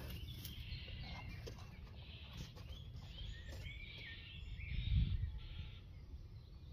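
Small birds chirping, a scatter of short rising and falling calls, over a steady low rumble, with a brief low swell about five seconds in.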